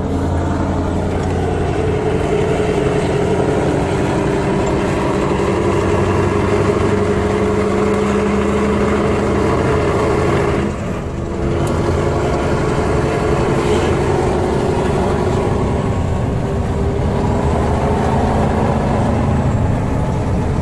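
Scania R620's V8 diesel engine heard from inside the cab, pulling under load with an open exhaust. Its note climbs slowly, dips briefly about halfway through, then climbs again.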